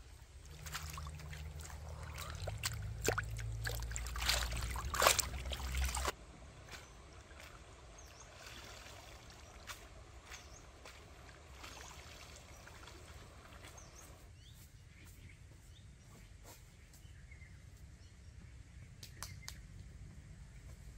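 Stream water sloshing and trickling as a woven basket of shrimp is rinsed in it, with scattered small clicks. For the first six seconds a low rumble sits under it, louder, and then cuts off suddenly.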